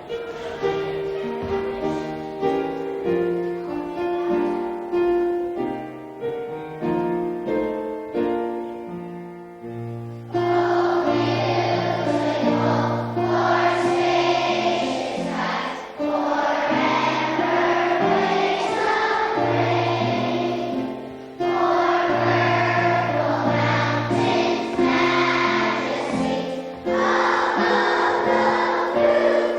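A song playing: an instrumental introduction of steady notes for about ten seconds, then a choir comes in singing over the accompaniment.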